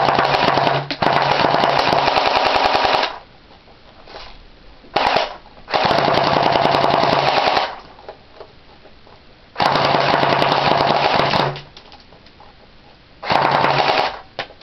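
Airsoft AK-47 firing on full auto in about five bursts of rapid shots, each one to three seconds long, with a steady low hum under each burst.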